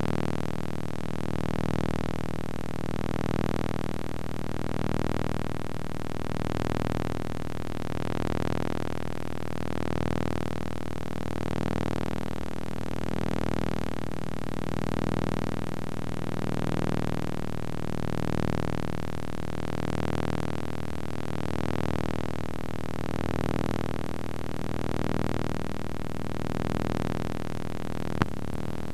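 Steady hiss and hum from a video recorder's audio output with no programme on it, swelling and fading about every 1.7 seconds. A single sharp click comes near the end.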